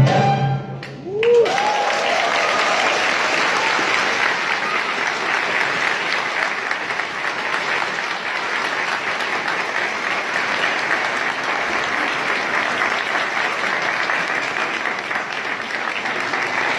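The last note of a violin and oud piece cuts off about half a second in. An audience then applauds steadily, with a short rising whoop from the crowd just after the music stops.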